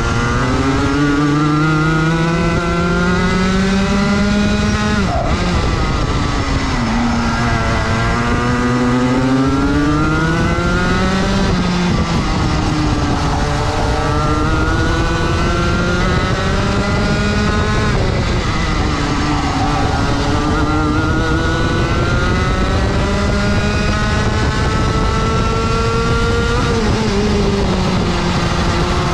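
Rotax 125 MAX single-cylinder two-stroke kart engine heard onboard at racing speed, its pitch climbing steadily along each straight and dropping sharply each time the driver lifts off for a corner, four times over.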